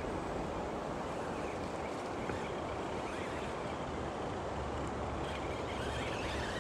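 Steady rush of a shallow, fast-flowing rocky river. Over it, in the second half, the faint whirr of a small RC crawler's brushless motor and gears as it climbs over the stones.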